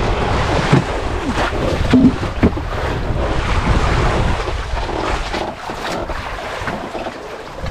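Wind buffeting the microphone at sea over the wash of waves, easing off a little over the last couple of seconds.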